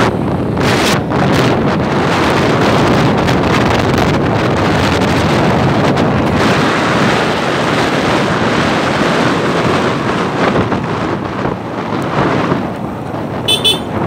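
Wind rushing over the microphone in a steady, loud rumble, with a brief high beeping near the end.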